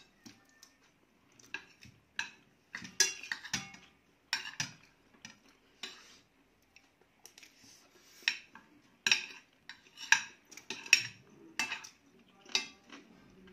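Metal spoons and forks scraping and clinking against ceramic dinner plates as two people eat, in an irregular run of short strokes.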